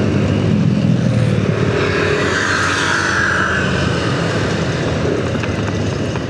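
Motorcycle engine running steadily while riding on a road, with road and traffic noise; a rushing sound swells and fades a couple of seconds in.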